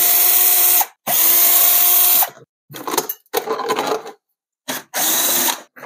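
Cordless drill-driver backing out the screws of a wheel-well splash cover, in short runs with a steady whine: two runs of about a second each at the start and a shorter one near the end. Between them come rattling handling noises as the loosened cover is pulled free.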